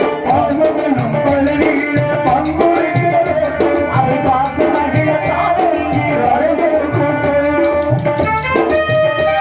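Live stage-drama accompaniment: tabla and drums beating a steady rhythm under a held, gliding keyboard melody.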